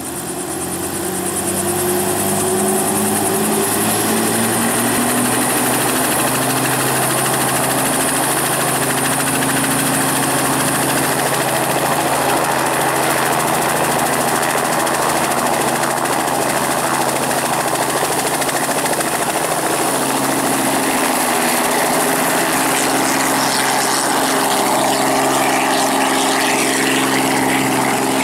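Robinson R44 II helicopter running on the ground: its Lycoming IO-540 six-cylinder piston engine and main and tail rotors speed up, the pitch rising and the sound growing louder over the first few seconds, then running steadily. Near the end the rotor sound grows fuller as the helicopter lifts off.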